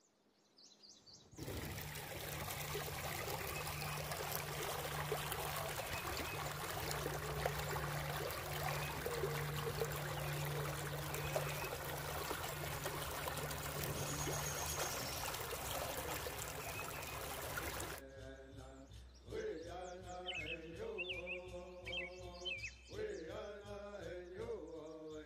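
Creek water rushing over a shallow rock riffle, a steady dense rush. About three-quarters of the way through it cuts off suddenly, and a quieter wavering pitched sound takes over.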